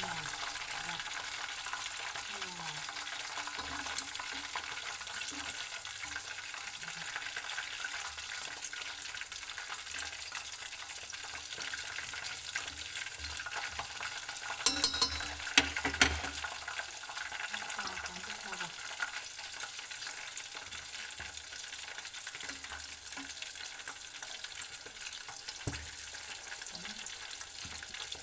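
Chicken pieces deep-frying in hot oil in a stainless steel pot: a steady sizzle with fine crackling. About halfway through comes a short cluster of sharp clicks as chopsticks knock against the pot while turning the chicken.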